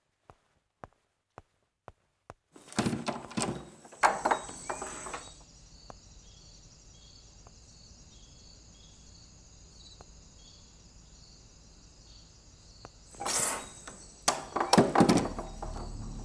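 Evenly spaced footsteps of high heels clicking on a hard floor, about two a second, then a run of knocks and thuds over a faint steady hum. Near the end come a loud rush and a few heavy bangs at a door.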